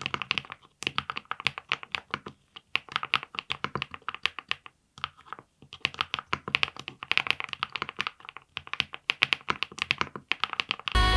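Typing on a VXE75 mechanical keyboard fitted with Ania axis switches on a PC plate with full foam: fast runs of key strokes broken by brief pauses. Music comes in at the very end.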